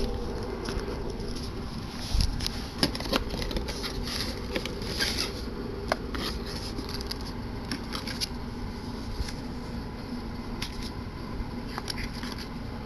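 Camcorder packaging being handled: cardboard and plastic scraping and rustling, with scattered clicks and taps over a steady background hum.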